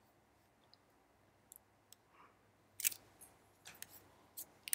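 A handful of faint, scattered clicks, the loudest few about three seconds in, over quiet room hiss.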